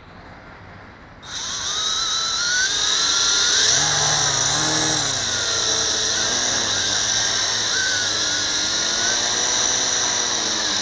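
WLtoys V262 quadcopter's motors and propellers spinning up about a second in while the craft is held in hand: a high, many-toned whine that rises and wavers for a moment, then holds steady. The rear right motor is losing power, a motor the owner takes to be burnt out.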